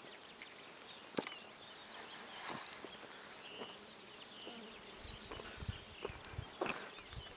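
Faint outdoor quiet with an insect buzzing now and then, a few light scattered clicks, and a low rumble in the second half.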